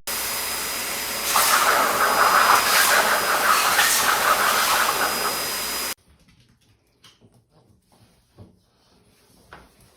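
A loud, steady hiss that cuts off abruptly about six seconds in, with a rougher, rasping layer through its middle. Faint small clicks and rustles follow.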